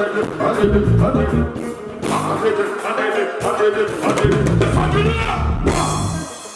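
Live band music with a drum kit and singing, a bongo flava song played at a sound check.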